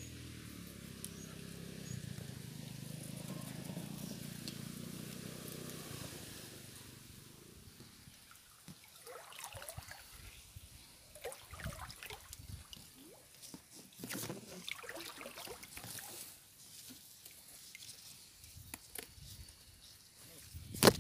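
A steady low hum for about the first six seconds, then small stream water trickling and splashing with scattered light clicks. A sharp knock comes near the end.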